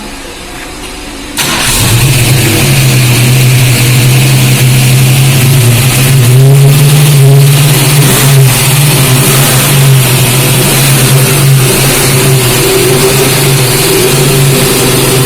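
Freshly built 347 stroker V8 of a 1965 Ford Mustang, through dual Flowmaster Super Series mufflers with an X-pipe, coming in suddenly about a second and a half in and then running loud and steady at idle, with a brief rise in revs around the middle.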